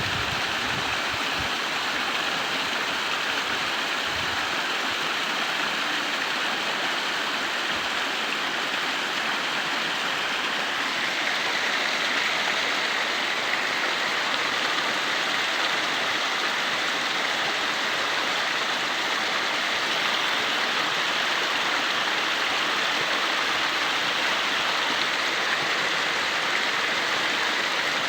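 Steady rush of flowing water, a little fuller from about a third of the way in.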